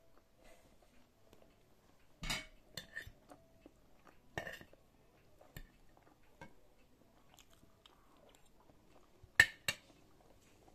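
Fork and knife clicking against a plate while eating, a handful of separate sharp clicks with quiet chewing between; the loudest two clicks come close together near the end.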